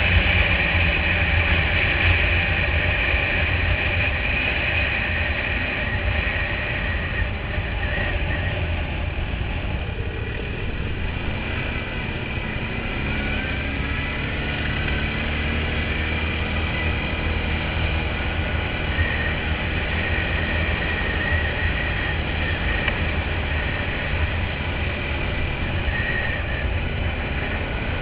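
Quad bike (ATV) engine running under way, heard from on board, with a steady drone mixed with wind and tyre noise. The engine note drops and then climbs again about halfway through.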